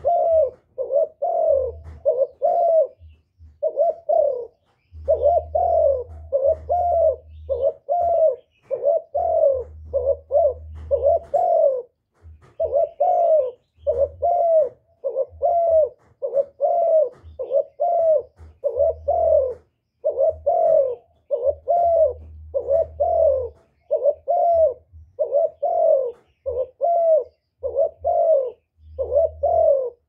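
Spotted dove cooing: short repeated coos, about one and a half a second, in runs broken by brief pauses.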